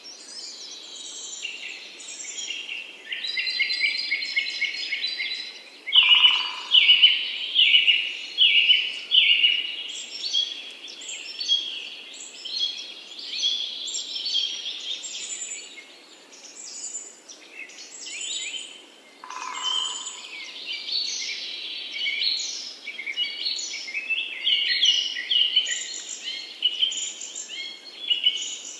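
A chorus of birds singing and chirping, many short calls overlapping. The loudest is a series of sharp chirps repeating about once a second for several seconds, from about six seconds in.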